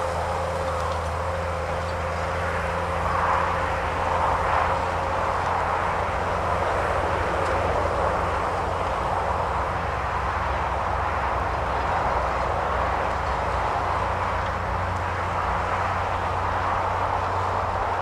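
New Holland T7060 tractor's six-cylinder diesel engine running steadily under load while pulling a reversible plough through the soil.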